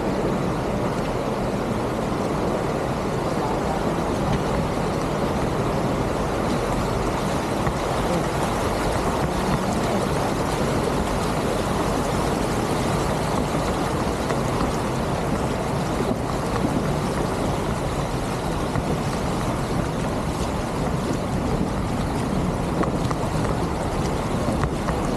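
Vehicle fording a river: a steady, noisy rumble of engine and rushing water.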